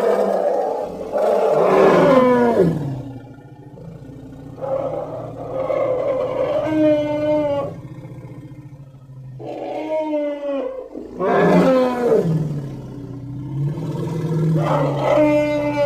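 Elephant calls used as creature sound effects: about four long, loud pitched calls in a row, several falling in pitch at the end, with quieter gaps between them.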